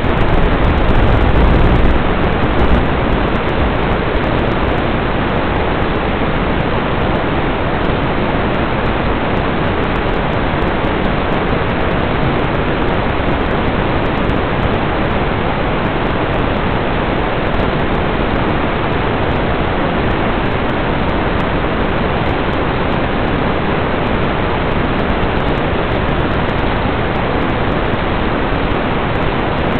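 Steady, even hiss of static from the empty audio channel of an analog FPV video link, as recorded by the goggles' DVR. No motor whine comes through, and the hiss is a little louder with a low rumble for the first couple of seconds.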